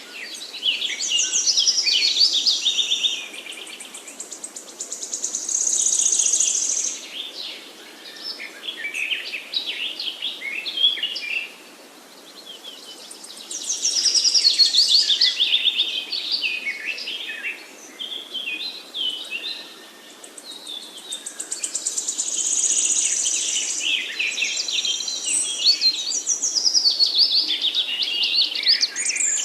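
Several songbirds singing at once: varied, high-pitched twittering and trilling phrases that overlap, swelling into louder bursts every few seconds.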